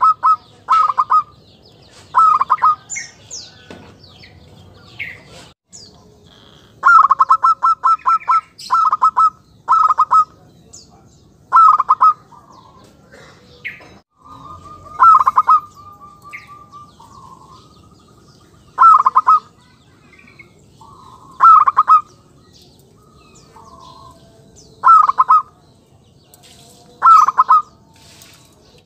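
Zebra dove (perkutut) cooing: short phrases of rapid staccato coos repeated every two to three seconds, about a dozen in all, one ending in a longer held note about halfway through. This is the clear, crisp call of a lure bird (pikat), used to call in wild zebra doves.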